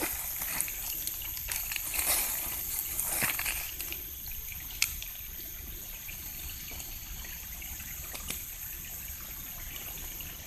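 Water trickling and lapping, with a few small splashes about two, three and five seconds in.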